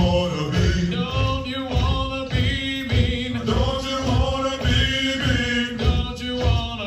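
Male voices singing a Marine Corps hiking cadence, a rhythmic military marching chant, over a steady low beat about twice a second.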